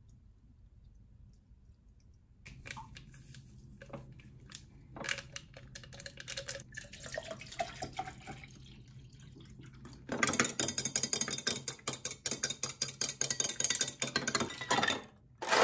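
Water poured from a plastic bottle into a glass pitcher, then, from about ten seconds in, a metal spoon stirring fast and clinking rapidly against the glass.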